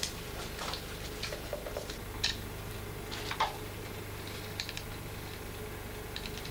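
Faint, scattered small clicks and light ticks over a steady low hum, a little stronger twice near the middle.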